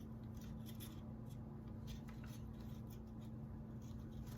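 Faint rustling and light ticks of hands handling and pulling out jute twine, over a steady low hum.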